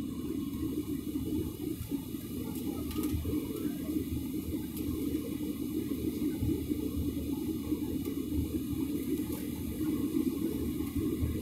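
Steady cabin noise of an airliner in flight, heard inside the cabin: jet engines and rushing air make an even low rumble with a fainter hiss above it.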